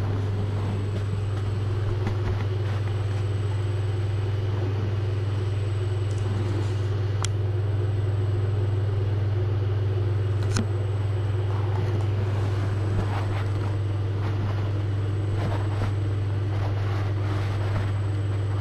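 A steady low hum with a fainter higher tone over it, and a couple of faint clicks.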